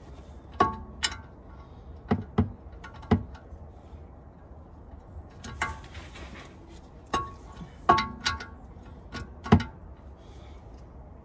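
Long-handled hand ratchet and socket working a bolt on a car's front brake caliper: about a dozen separate metallic clicks and clinks in irregular groups, several ringing briefly.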